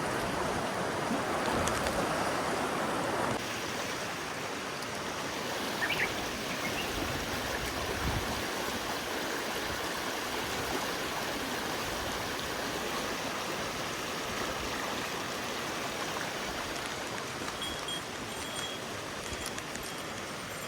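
Mountain stream flowing over rocks: a steady rush of water that eases slightly about three seconds in.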